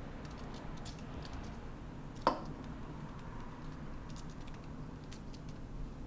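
Olive oil drizzled from a glass bottle onto cut vegetables on a parchment-lined baking sheet: faint scattered pattering and small ticks, with one sharper click about two seconds in.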